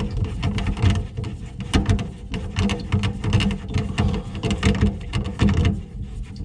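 A faucet mounting nut being spun down its threaded shank with a homemade wrench: irregular clicking, scraping and rattling of tool on nut, with low handling rumble.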